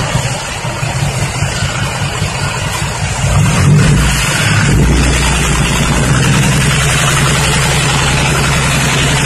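Isuzu Deca six-wheel dump truck's diesel engine running. About three and a half seconds in it rises to a higher, steady speed and holds there as the loaded tipper bed is raised by its hydraulics.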